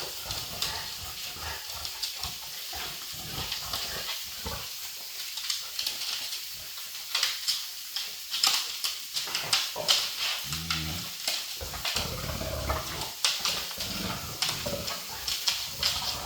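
Dogs, a Dogue de Bordeaux and a goldendoodle puppy, scuffling at play, with many irregular clicks and rustles and a short low grunt about ten seconds in.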